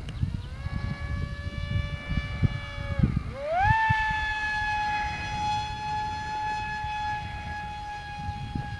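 Multiplex FunJet RC jet's electric motor and pusher propeller whining in flight: a steady whine that dips sharply about three seconds in, then climbs back to a higher pitch and holds. Wind rumbles on the microphone.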